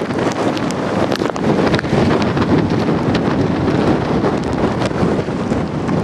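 Strong tropical-storm wind buffeting the microphone in loud, uneven gusts, over heavy storm surf breaking on rocks.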